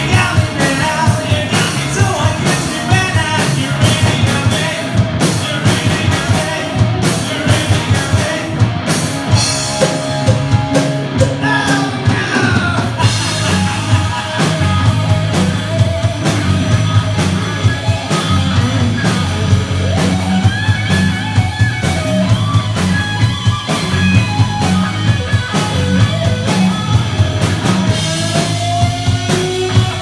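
Live rock band playing: a man singing lead over electric guitar, bass guitar and a drum kit, with a steady driving beat.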